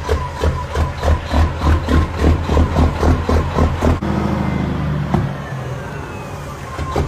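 Caterpillar diesel engine of a semi truck running as the truck pulls away; from about halfway it holds a steady note with a whistle rising in pitch over a couple of seconds. A pulsing music beat, about three a second, covers the first half.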